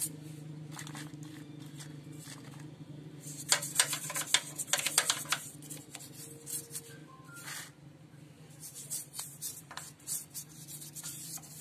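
Plastic scrub brush with cream soap scrubbing a small petrol engine's casing: quick rasping rubbing strokes in bunches, busiest around the middle and again near the end, over a steady low hum.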